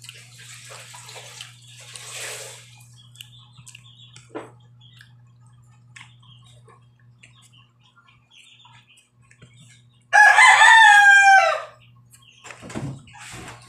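A rooster crows once, loudly, about ten seconds in: a single drawn-out call lasting under two seconds that sags slightly in pitch toward the end.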